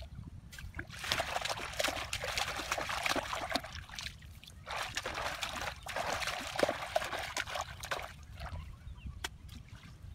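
Water splashing and trickling in two spells of a few seconds each, with a short pause between them.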